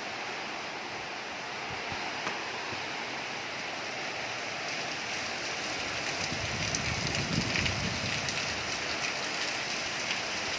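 Heavy rain falling in strong wind: a steady rush of rain, with a gust rumbling on the microphone about two-thirds of the way in and scattered drops ticking in the second half.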